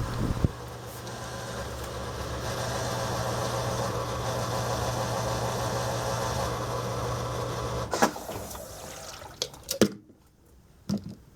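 Haier HLP23E portable washing machine spinning in its rinse cycle, a steady motor hum with a rushing drum and water noise. About eight seconds in it stops, with a few sharp knocks and clicks, then goes quiet apart from one more knock near the end.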